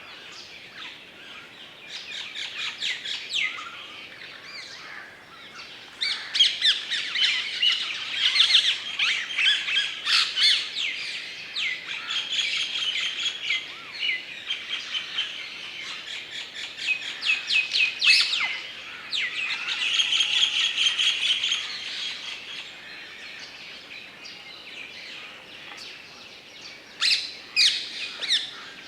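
Several birds chirping and calling over one another in a woodland, in busy bouts of quick high chirps and trills with calmer stretches between.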